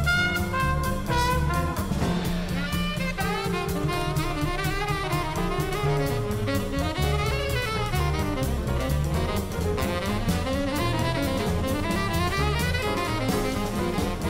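Background jazz music, with horns playing over a drum kit's steady beat.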